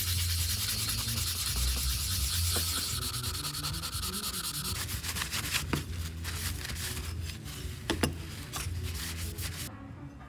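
Hand rubbing or sanding with an abrasive: a steady scratchy hiss for the first half, then quicker uneven strokes, with a couple of sharp clicks around eight seconds in.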